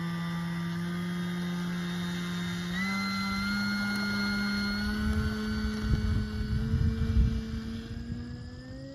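Electric motor and propeller of an E-flite Carbon-Z Cessna 150T RC plane whining on a takeoff run across grass, the pitch stepping up about three seconds in and rising again near the end as the throttle goes up. A low uneven rumble comes and goes in the middle.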